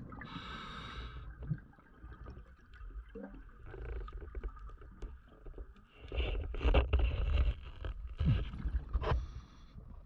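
Scuba diver breathing through a regulator underwater: a hissing inhale at the start, then exhaled bubbles rumbling and gurgling, loudest about six seconds in.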